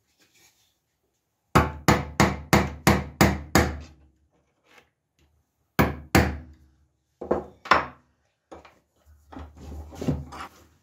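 A hammer tapping a steel punch held against a machete's wooden handle, center-punching the spot to be drilled. A quick run of seven strikes, then two more after a pause, then two lighter taps and some rubbing near the end.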